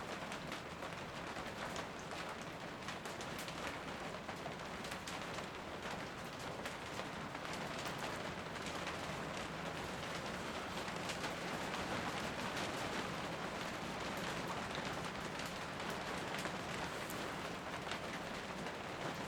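Steady rain falling, with many small scattered drop ticks over an even hiss.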